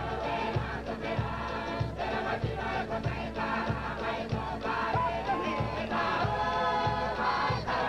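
Cook Islands group singing in chorus over a steady drumbeat, roughly three beats every two seconds, accompanying a seated action dance.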